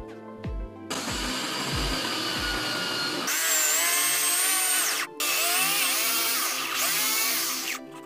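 Corded electric drill boring into a wooden bow riser: the drill starts about a second in, gets louder as the bit bites into the wood, its motor whine wavering in pitch under load, drops out briefly midway and stops just before the end. Background music with a steady beat plays underneath.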